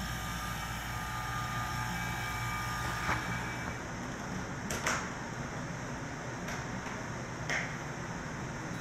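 Vacuum pump for vacuum-bag veneering running with a steady hum, which stops about three and a half seconds in. After that come a few short knocks and rustles as the blue hose and plastic vacuum bag are handled.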